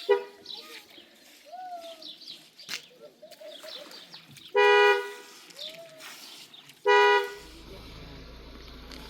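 Vehicle horn honking: a short toot at the start, then two loud half-second honks about two seconds apart, each at one steady pitch. A low steady rumble sets in after the second honk.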